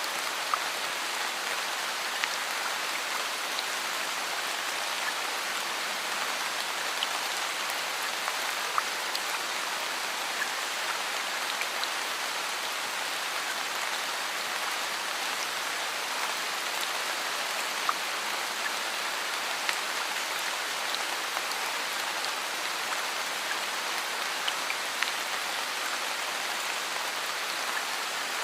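Steady rainfall: an even hiss of rain with scattered individual drops ticking sharply now and then.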